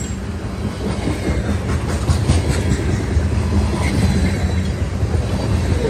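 Tank cars of a freight train rolling past close by: a steady low rumble of steel wheels on the rails, with a quick run of clicks and clacks about two seconds in.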